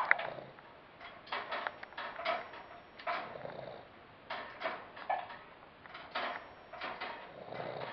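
Boston Terrier snoring in its sleep: a run of short noisy snoring breaths, about one to two a second, the kind of snore typical of its short-nosed breed.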